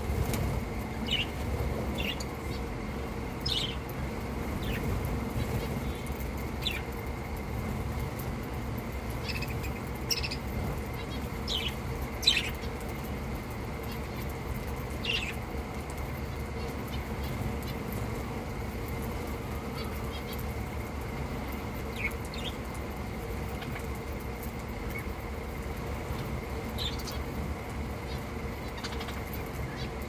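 Flock of budgerigars giving short, scattered chirps, with wing flaps as birds fly down to the flock, over a steady low rumble. One louder sharp sound about twelve seconds in.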